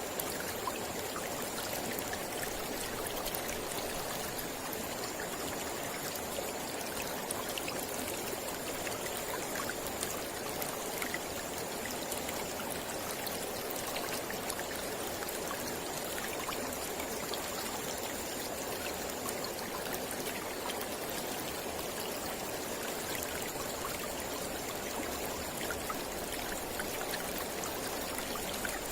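Mountain river flowing steadily over rocks: an even rush of water with small splashes scattered through it.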